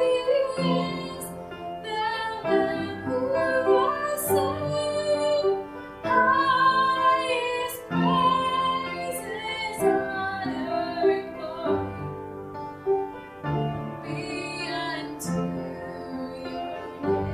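A woman singing a slow song with vibrato, over sustained instrumental accompaniment.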